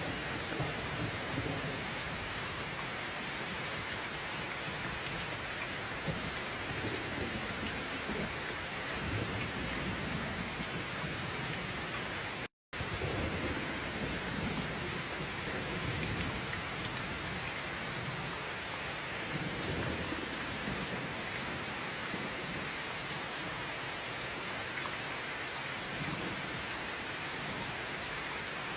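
Steady heavy rain hissing on surfaces, with slow low rumbles of distant thunder rolling underneath. The sound cuts out completely for a split second about twelve seconds in.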